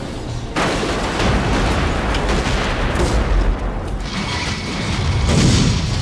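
Movie sound effects of helicopters exploding and crashing: a blast breaks in about half a second in, followed by dense crashing and rumbling, with another loud low blast near the end. Film score plays underneath.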